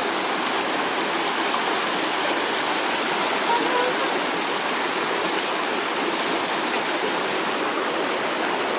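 Steady rushing of a creek and small waterfall spilling over rocks, an even, unbroken wash of water noise.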